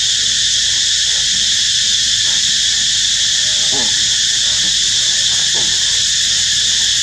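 Steady high-pitched drone of a cicada chorus, with long-tailed macaques giving a few short squealing calls about three and a half seconds in and again a couple of seconds later.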